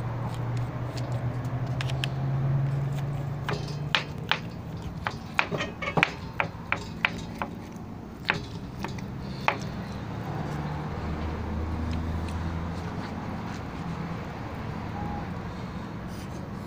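Low steady hum of a running vehicle engine, shifting lower in pitch about eleven seconds in. A run of sharp clicks and taps comes from about four to ten seconds in.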